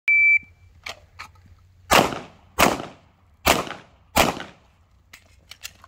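A shot timer's short high start beep, then four handgun shots in two pairs, each pair fired about two-thirds of a second apart: two rounds on one target, a short pause for the transition, then two on the next. Each shot echoes briefly.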